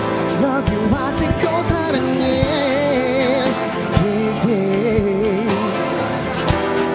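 Pop ballad backing track with a steady drum beat, and a male singer's wordless vocal runs with vibrato, sung live into a handheld microphone.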